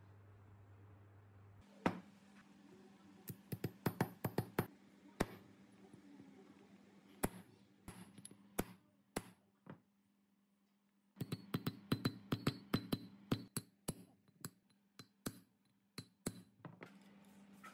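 Hammer striking a steel drift to drive a bearing into the bore of a steel housing: sharp metallic taps in quick runs, starting about two seconds in, with a short pause near the middle.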